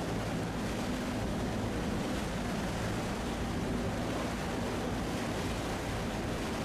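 A boat engine running steadily under a constant wash of water and wind noise.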